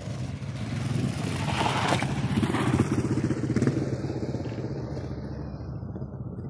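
Dirt bike engine coming down the motocross track and passing close by. It grows louder to a peak about two to four seconds in, then fades as the bike moves away.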